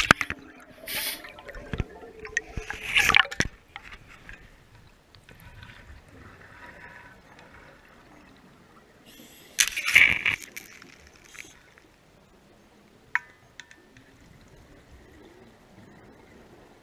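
Underwater sound picked up by a GoPro in its waterproof housing as it sinks: gurgling water in the first few seconds, then a quiet muffled wash with one loud rush about ten seconds in and a short sharp tick a few seconds later.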